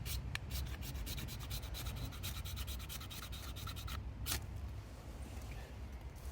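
Quick, repeated scraping strokes, several a second, for about four seconds, then one sharper scrape; a low steady rumble underneath.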